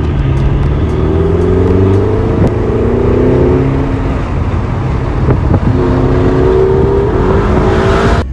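Ferrari engine heard from inside the cabin, accelerating hard: the revs climb, drop back about four seconds in, then climb again near the end.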